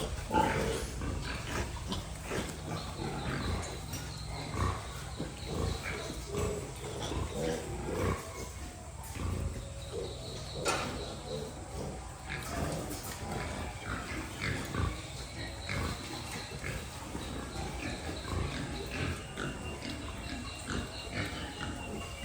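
Pigs grunting in short, irregular bursts, with occasional higher piglet squeals now and then.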